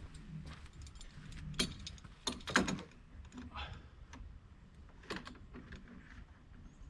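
Irregular clicks and knocks of hand work on wooden and PVC door trim, with a sharper cluster about two and a half seconds in and another near five seconds, over a faint steady low hum.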